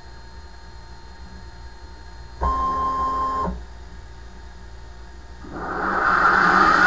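Benchtop CNC mill: its axis stepper motors give a steady whine for about a second during a rapid move, then about two seconds later the spindle motor starts, its noise climbing steadily as it spins up.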